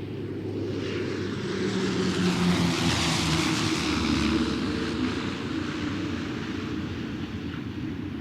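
An engine passing by: a steady motor hum and hiss that swells to a peak about three seconds in, then slowly fades.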